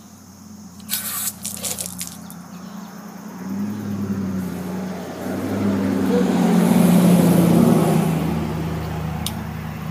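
A vehicle driving past, its rushing sound swelling over a few seconds and fading again, over a steady low hum. A few sharp clicks come about a second in.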